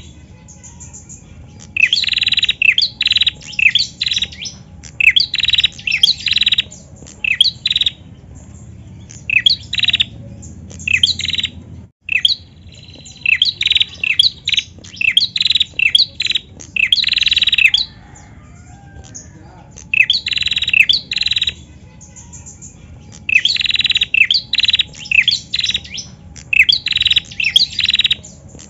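Female prenjak calling: repeated phrases of rapid, sharp, high chirps, each lasting a second or two, with short pauses between them.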